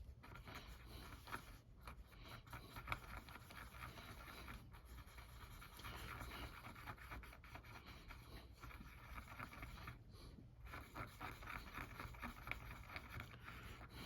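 Faint, continuous scraping and rubbing of paint being mixed, coffee-brown with white, with small irregular ticks of the tool against the mixing surface.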